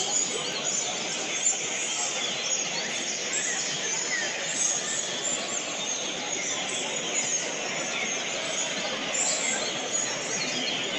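Many caged trinca-ferros (green-winged saltators) singing at once, a dense chorus of overlapping chirps and whistles with no pause.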